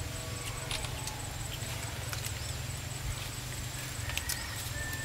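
Steady low rumble of wind on the microphone, with scattered small clicks and ticks and a thin steady high whine.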